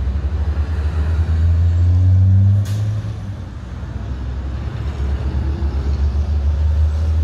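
Heavy truck engines passing on the road: a loud, steady low rumble that eases off briefly about three seconds in, with one short sharp hiss just before, like an air brake.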